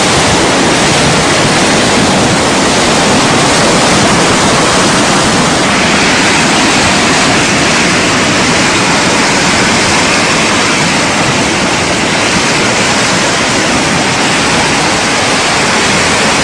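A muddy flash-flood torrent rushing past, heard as a loud, steady roar of water.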